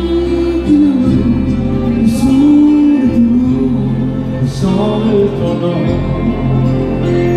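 Live French-language country song: a man sings long held notes into a microphone over amplified instrumental backing.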